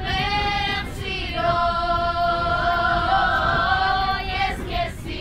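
A group of young people singing together unaccompanied, mostly women's voices: a short phrase, then a long held, wavering note in the middle before it breaks off near the end.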